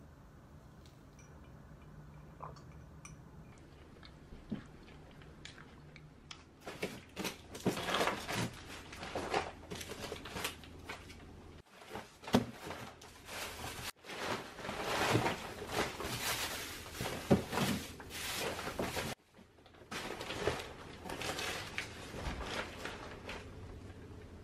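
Plastic bags and newspaper wrapping crinkling and rustling, with sharp crackles, as tape-sealed packages are lifted out of a styrofoam box and handled. It starts about seven seconds in and breaks off abruptly a few times.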